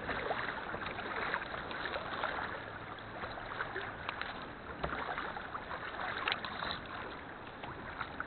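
A kayak paddle dipping and pulling through sea water, with repeated small splashes and drips.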